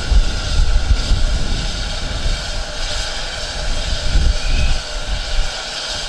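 Steam train running with a steady low rumble, and a faint, brief high note about four seconds in.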